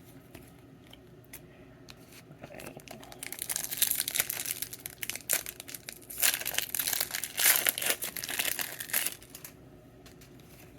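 Foil wrapper of a Pokémon booster pack being crinkled and torn open, in two stretches of crackling, the second a little longer.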